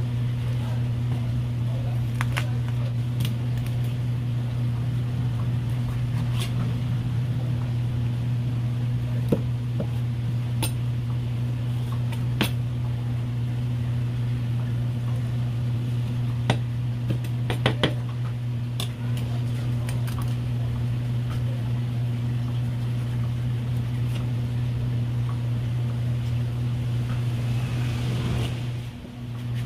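A steady low machine hum runs throughout. Over it, a knife gives scattered light clicks and taps on a plastic cutting board while fish fillets are skinned and trimmed, with a few quick clicks close together about two-thirds of the way in.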